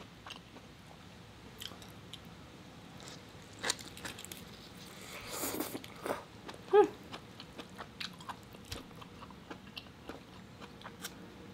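Close-up mukbang eating sounds: lobster meat and rice chewed with wet mouth clicks and smacks, with a short slurp about five seconds in.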